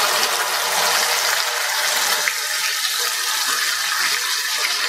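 Wet onion, ginger, garlic and cashew paste sizzling steadily as it goes into hot oil in a kadhai.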